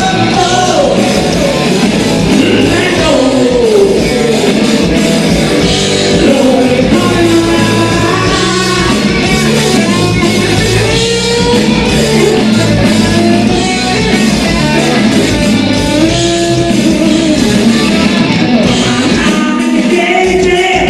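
Live rock band playing loudly: a Telecaster-style electric guitar over a steady drum groove.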